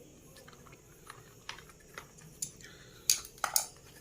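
Scattered light clicks and taps of a screwdriver and small metal screws as screws are taken out of an induction stove's circuit board, with a few louder clicks about three seconds in.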